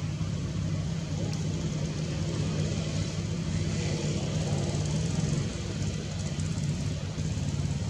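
Steady low motor hum, like an engine running, with no break and no clear animal calls over it.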